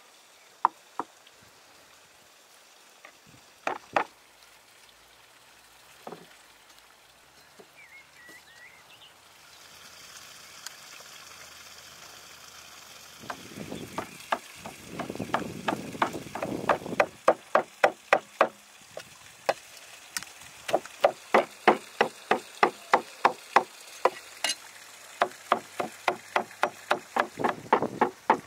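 Meat cleaver chopping raw meat into mince on a wooden log chopping block. A few scattered knocks come first, then from about halfway through a steady run of sharp strokes, about three a second.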